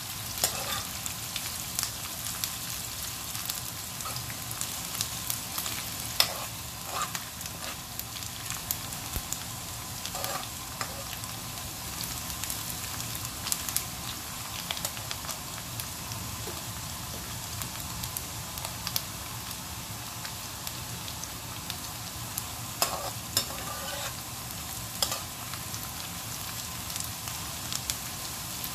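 Sliced onions and whole spices sizzling in hot oil in a metal kadhai on high heat, frying on their way to brown. A slotted metal spoon stirs them, clicking and scraping against the pan now and then.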